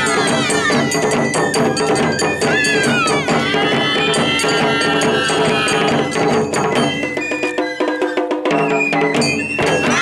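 Live Japanese festival dance music: drums struck in a fast beat with a clanking metal percussion, and voices or a flute gliding over it.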